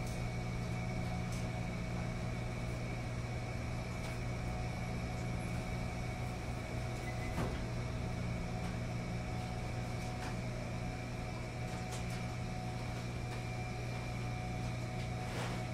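Steady hum of a laundromat's commercial front-loading washing machines running, with a few faint clicks.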